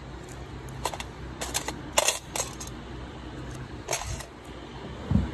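Steel nail-care instruments clinking against each other and a metal tray: about six sharp metallic clicks, a few with a short ring, over a low steady hum.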